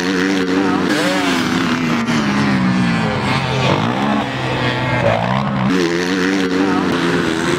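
Several racing motorcycle engines revving hard at once, their pitch rising and falling as the riders work the throttle.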